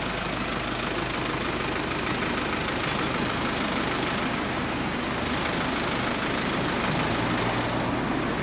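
Street traffic noise with a vehicle engine running close by, a steady low hum under the general traffic din.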